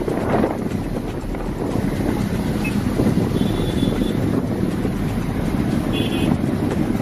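Wind rushing over the microphone with motorcycle engines running in a group ride. Two brief high beeps come through near the middle and again near the end.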